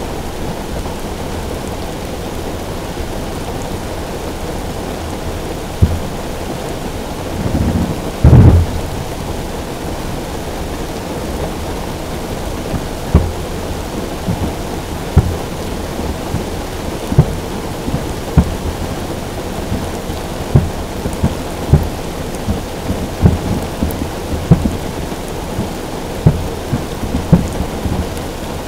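Heavy rain drumming steadily on a car roof, with the low booms of distant fireworks shells bursting. A louder, longer boom comes about eight seconds in, and in the second half the booms come about every second.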